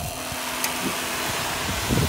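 A 12 V water transfer pump switching on as it is connected to the battery, then running with a steady motor hum and whir as it draws water from the bucket.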